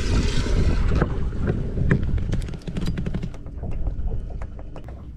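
Water churning and splashing in a Skeeter bass boat's live well, then a run of light clicks and knocks as it is handled, over wind rumbling on the microphone.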